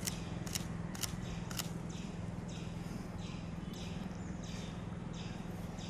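Four sharp clicks about half a second apart, then a run of short high chirps repeating about twice a second, over a steady low hum.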